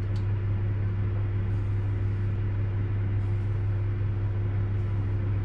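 A steady low hum fills the background, with a few faint soft scrapes from a bread lame cutting slashes into the top of the proofed dough.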